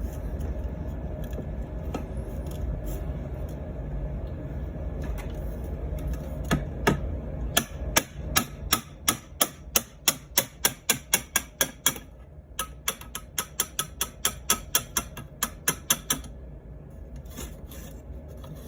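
Quick, even hammer taps, about three a second, on a 1/2-inch EMT pipe driving the rust-seized barrel and magazine assembly out of a Daisy 105 Buck BB gun, in two runs with a short pause between.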